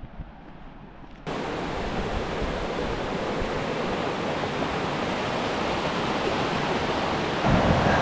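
Steady rush of a mountain stream's flowing water, cutting in abruptly about a second in and holding even.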